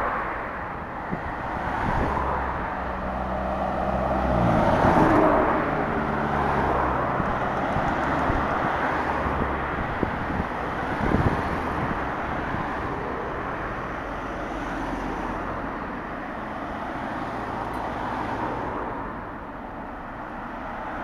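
City road traffic: cars passing with engine hum and tyre noise. The traffic swells loudest about five seconds in, as engine tones slide down in pitch while a vehicle goes by. There is a short sharp knock about eleven seconds in.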